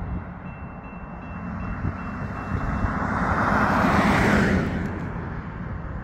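A Toyota Tacoma pickup truck driving past close by, its tyre and engine noise swelling to a peak about four seconds in and then fading, over a steady low rumble.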